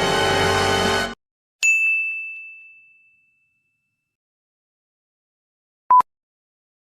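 A music clip cuts off suddenly about a second in, followed by a single bright ding chime that rings out and fades over about a second and a half. Near the end comes one short, steady beep like a censor bleep.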